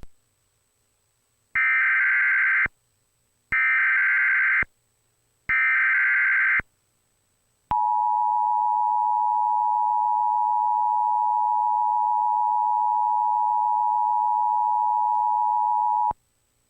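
Emergency Alert System tones relayed by a Trilithic EASyPLUS: three warbling data bursts about a second long, the SAME header that encodes a new blizzard warning, followed by the steady two-tone EAS attention signal. The attention tone runs for about eight seconds and cuts off sharply.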